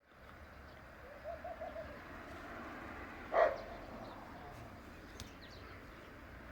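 Faint animal calls: a quick run of four short pitched notes, then a single louder, brief call a couple of seconds later.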